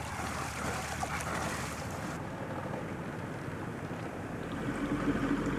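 Water rushing and splashing past the hull of a sailboat under way, with wind on the microphone; the hiss eases about two seconds in.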